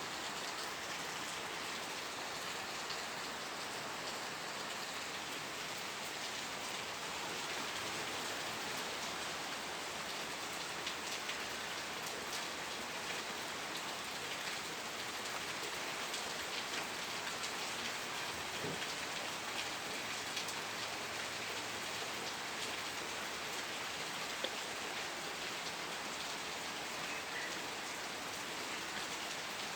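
Steady rain falling on a surface, an even wash of patter with scattered individual drop ticks.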